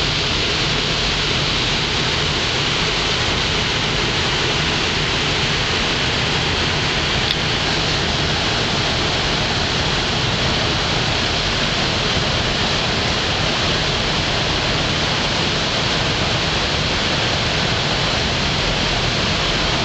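Loud, steady rushing noise aboard a moving Nile cruise ship: water rushing along the hull and wind passing, over a low rumble.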